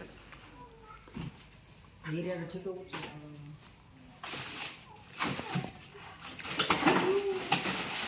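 Crickets chirring steadily in a high, even trill. About halfway through and again near the end come bursts of rustling and scraping as a sack and the debris around it are shifted by hand.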